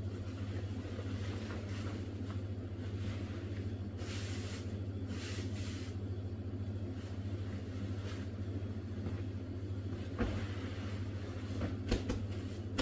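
A steady low hum, with a couple of brief rustles about four and five seconds in and a few sharp knocks near the end.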